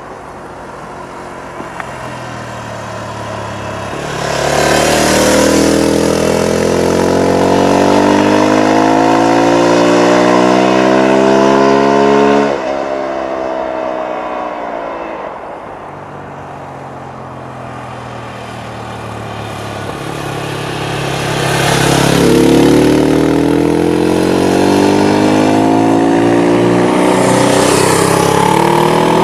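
Motorcycles riding past one at a time. Each engine's pitch climbs as the bike approaches under acceleration, then drops sharply as it goes by: about twelve seconds in, again around twenty-two seconds, and another bike comes past near the end.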